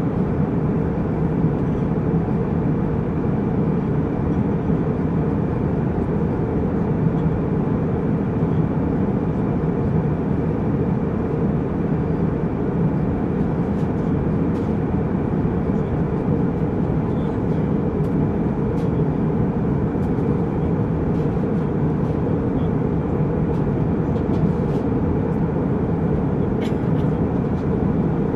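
Jetliner cabin noise in flight: a steady low rush of jet engines and airflow, with a few faint clicks in the second half.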